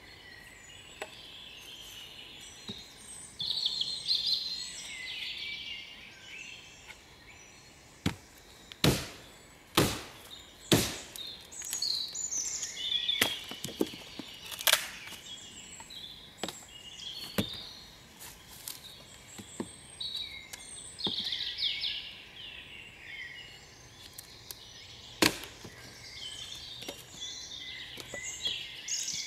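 A small axe striking wood in a handful of sharp knocks: four within about three seconds near the middle, then single strokes spread out later. Woodland birds sing throughout.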